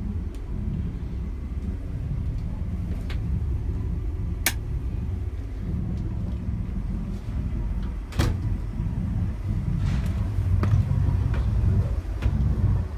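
Boat engine idling with a steady low rumble, broken by a few short sharp knocks, the loudest about eight seconds in.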